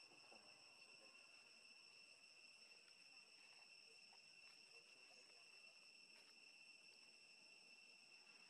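Near silence, with a faint steady high-pitched drone of insects and a few faint scattered ticks.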